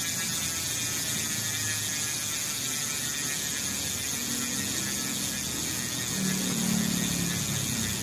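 Sword high-performance rear hub with six pawls freewheeling as the wheel spins, its ratchet making a steady high-pitched buzz.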